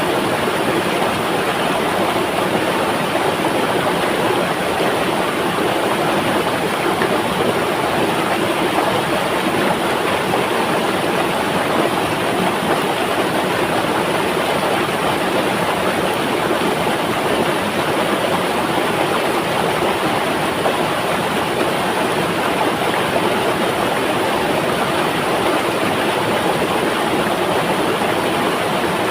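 River water flowing, a steady unbroken rushing.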